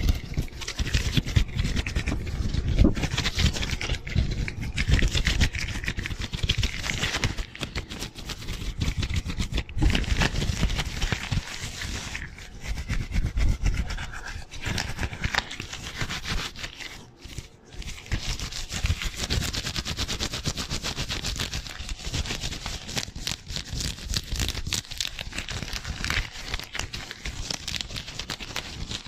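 Disposable gloves rubbing together and brushing over a foam-covered microphone in fast, continuous strokes: a dense run of rubbing and scratching with dull bumps from contact with the mic. There is a short lull about seventeen seconds in.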